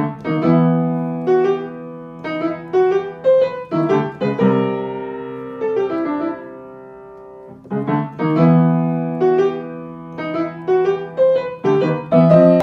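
Piano music: a gentle melody of struck, fading notes over held chords, the phrase starting over about eight seconds in.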